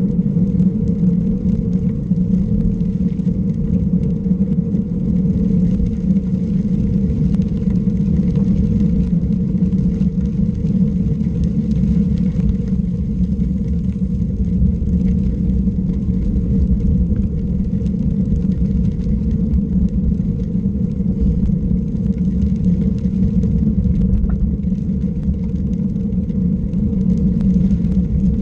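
A vehicle's engine running at a steady, even speed under way, with low road and wind rumble beneath it.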